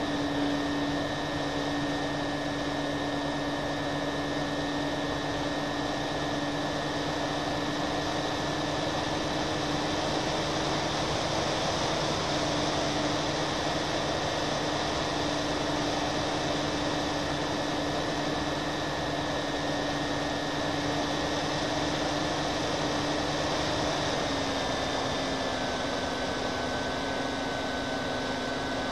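Twin motors and propellers of an FPV model plane running at a steady cruise with a constant drone, with wind rushing over the plane's onboard microphone. The pitch drops slightly about 24 seconds in.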